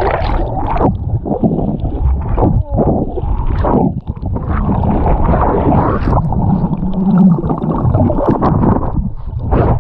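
Underwater sound through a GoPro's waterproof housing: muffled rumbling and sloshing of water moving against the case, with irregular knocks and bubbling. A brief low hum sounds about seven seconds in.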